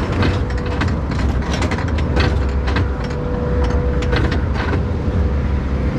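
A log flume boat being carried up the lift: the lift clatters and knocks irregularly over a steady low rumble, with a constant mechanical hum through most of it.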